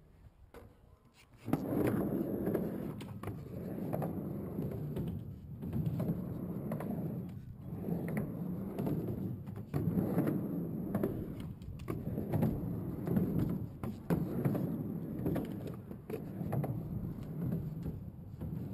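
Skateboard wheels, on freshly oiled bearings, rolling across a half-pipe ramp. The rumble starts suddenly about a second and a half in, then swells and fades every couple of seconds as the board carves back and forth, with scattered light clicks and knocks.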